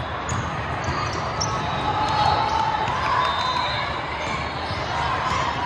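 Volleyballs being hit and bouncing on a hard indoor court, heard as quick scattered impacts over a steady crowd murmur.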